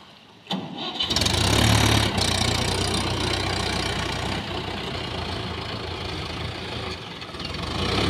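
Swaraj 843 XM tractor's diesel engine running under load as the tractor drives through a stream. The sound comes in about a second in, is loudest just after, and swells again near the end.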